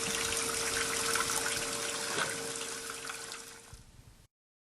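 Water running from a tap into a sink, a steady rush with a faint steady hum under it, fading away near the end.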